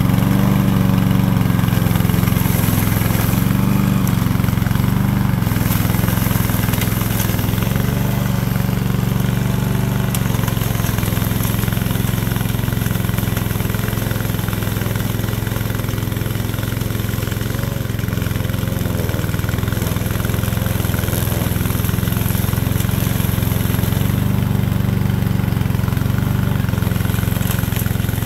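Engine of a remote-controlled tracked mower running steadily while it cuts into tall grass, a constant low drone whose level barely changes.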